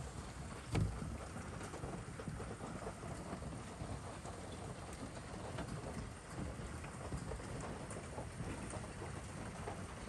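Hailstorm: a heavy downpour of rain and hail pelting steadily, with scattered sharp ticks of stones striking, and a single low thud about a second in.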